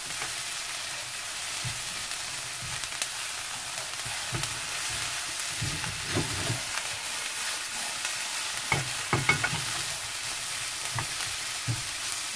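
Shredded dried pollock and shishito peppers sizzling steadily in oil in a nonstick frying pan, while a silicone spatula stirs them, scraping and tapping against the pan now and then, several times about two-thirds through.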